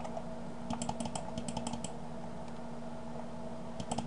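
Computer keyboard keystrokes: a quick run of about eight key presses about a second in and a few more near the end, over a steady low hum.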